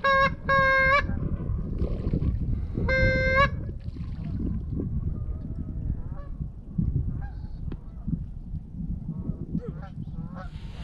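Goose call blown in short, flat, steady-pitched honks: a longer note about half a second in and another about 3 seconds in. Fainter, wavering honks of distant geese follow, over a low wind rumble on the microphone.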